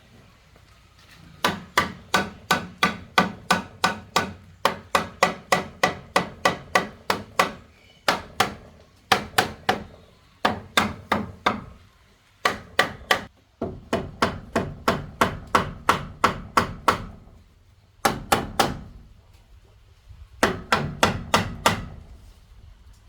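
Quick runs of sharp blows from a hand tool, about four a second. The blows come in bursts of several seconds broken by short pauses.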